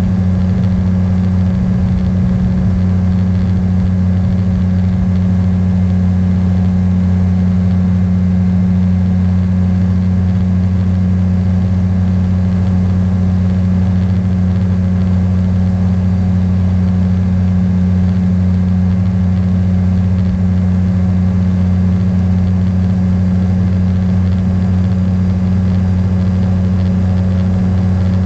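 Beaver RX 550 ultralight's engine and pusher propeller running steadily in level cruise flight, a constant low drone that holds its pitch throughout.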